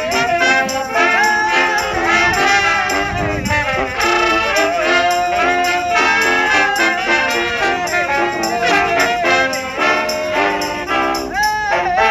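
Brass band playing an upbeat tune, with trumpets, trombones, saxophones and a sousaphone together.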